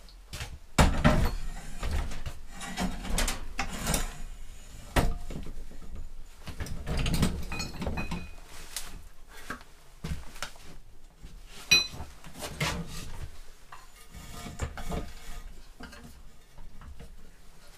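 Gas bottle knocking, clanking and scraping against the steel frame of a welding cart as it is slid into the bottle holder. The knocks are irregular, with a sharp clank near the start and another about two-thirds of the way in that rings briefly.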